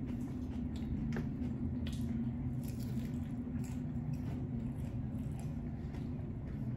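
Someone chewing a taco: soft wet mouth clicks and smacks, scattered a few to the second, over a steady low hum.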